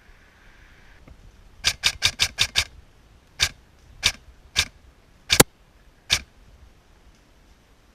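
Novritsch SSR9 airsoft replica firing: a rapid string of about six shots, then five single shots spaced about half a second to a second apart. The fourth single shot is the loudest.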